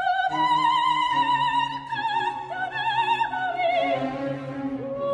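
Operatic singing: a voice holding long notes with a wide, even vibrato over orchestral accompaniment.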